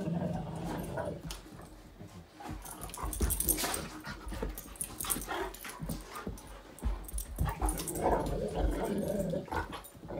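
Two dogs play-fighting: an adult dog and a five-month-old puppy growling in play, with scuffles and thumps of bodies and paws on the carpet as they wrestle.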